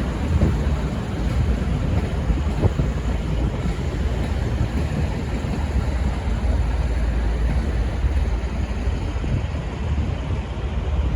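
V/Line VLocity diesel railcar running, a steady low rumble.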